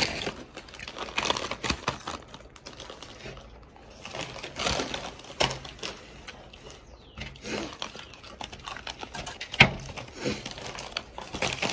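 Irregular crinkling and rustling with small clicks, from hands handling food and things on a table.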